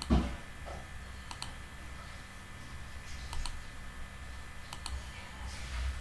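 Computer mouse clicking about three times, each a quick press-and-release double click, as points are placed in Google Earth; a short low thump near the start is the loudest sound.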